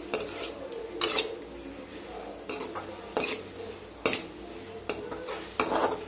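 Metal ladle scraping and stirring sautéed mint leaves in an aluminium kadai, with about six scrapes against the pan at uneven intervals.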